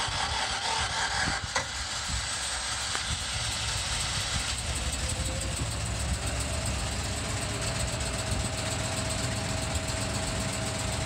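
Natural-gas engine generator set running steadily soon after start-up, in warm-up mode. There is a sharp click about one and a half seconds in, and a steady high whine joins partway through.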